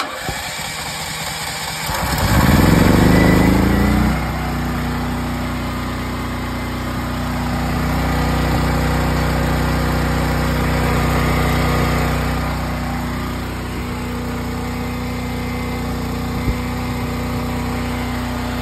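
Westinghouse WGen9500DF generator's single-cylinder engine, running on natural gas through a newly fitted regulator. The electric starter cranks it for about two seconds, then it catches and revs up with a rising pitch. About four seconds in it settles into steady running.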